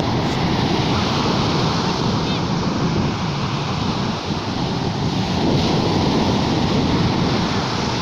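Sea waves: a steady, unbroken rush of surf.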